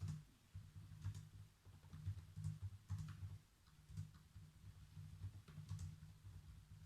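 Computer keyboard typing: faint, irregular keystrokes, each a short click with a dull thud, coming in uneven clusters with brief pauses between.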